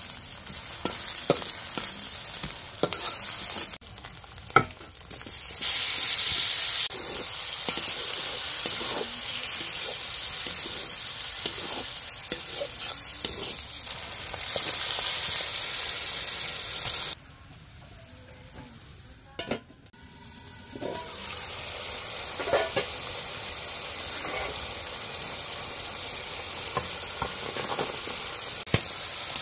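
Food sizzling in hot oil in a pan while being stirred, with a steady hiss and frequent sharp clicks and scrapes of the spatula against the pan. The sizzle drops away for a few seconds past the middle, then comes back.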